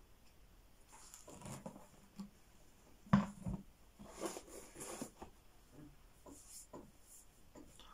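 Rustling and handling noises at a table, with one sharp knock about three seconds in and a burst of rustling just after.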